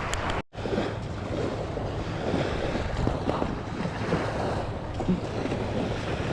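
Wind buffeting the microphone over surf washing on a beach, a steady noisy rush with a low rumble. The sound drops out completely for a moment about half a second in.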